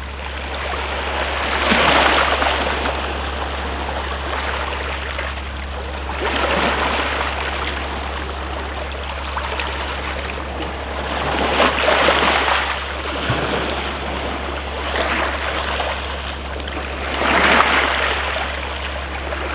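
Sea waves washing against rocks: a steady hiss of moving water that swells into a louder surge every five seconds or so, over a steady low rumble.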